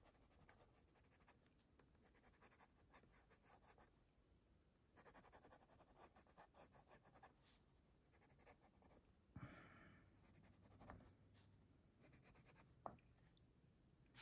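Faint scratching of a Faber-Castell Polychromos colored pencil shading on black paper, in short runs of quick back-and-forth strokes with brief pauses between them.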